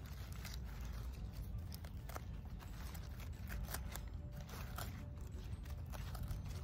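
Romaine lettuce leaves rustling and crackling as they are handled, with short sharp snips of garden scissors cutting the stems, over a low steady rumble.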